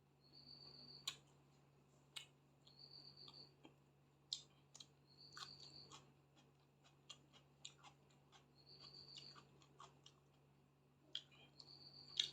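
Faint eating sounds of someone chewing a mouthful of rice and chicken, with irregular soft mouth clicks and smacks, over a low steady hum.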